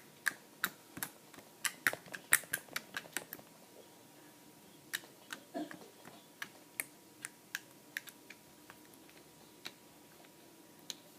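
Slime being squeezed and stretched by hand, letting out irregular sharp clicks and pops, thickest in the first three seconds and more scattered after.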